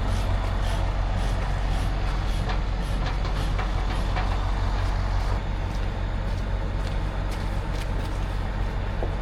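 Heavy diesel engine idling: a steady low rumble, with scattered light clicks and knocks over it.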